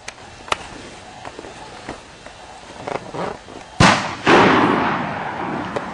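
Two close, loud shotgun shots about half a second apart, the second trailing off in a long echo. They come after a few fainter sharp cracks.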